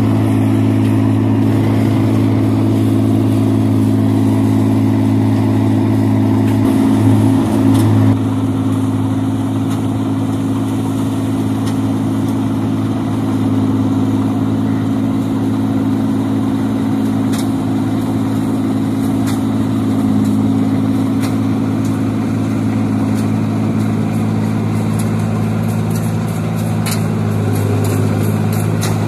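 Tracked rice combine harvester's diesel engine running steadily as the machine harvests paddy, a constant engine drone, with a brief louder surge about seven seconds in and light ticking near the end.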